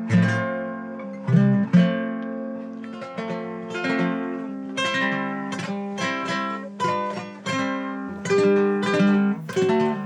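Acoustic guitar played solo: a picked melody of single plucked notes over ringing bass notes and occasional strums, with no singing.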